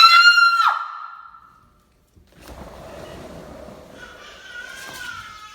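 A woman's shrill scream of fright, held at one high pitch and breaking off with a falling slide under a second in. After a short quiet gap, faint background noise follows.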